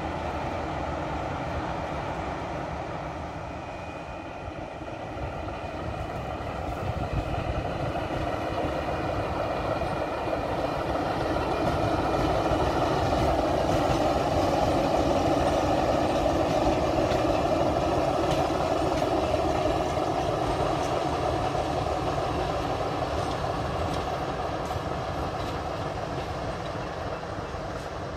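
A diesel locomotive's engine running steadily as it passes close by. It grows louder to a peak about halfway through, then fades as the locomotive moves away.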